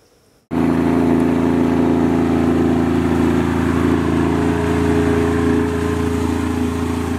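Boat outboard motor running at a steady idle. It cuts in abruptly about half a second in and holds an even pitch throughout.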